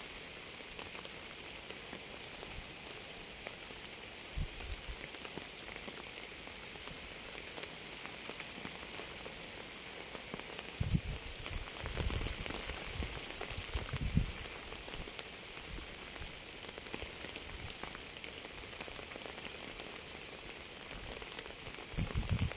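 Steady rain falling, an even hiss with many fine drop ticks. A few short low thuds come in the middle.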